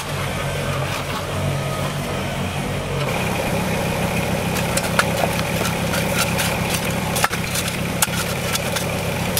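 Kubota BX compact tractor's three-cylinder diesel engine running steadily, changing note about three seconds in. From about five seconds on, a spade scrapes and clinks into gravelly soil several times.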